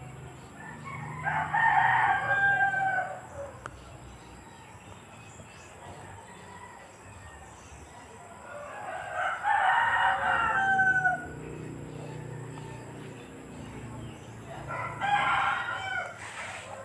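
Three long animal calls, each about two seconds and several seconds apart, each ending in a falling pitch.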